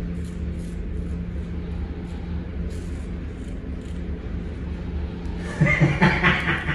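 Straight razor scraping a lathered scalp in short, quick strokes, faint over a steady low hum. A person's voice, laughter-like, comes in near the end and is the loudest thing.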